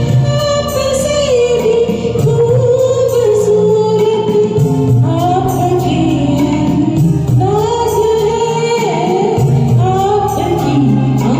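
Karaoke singing of a Hindi film duet: a live singer's voice carrying a smooth, held melody over a recorded instrumental backing track.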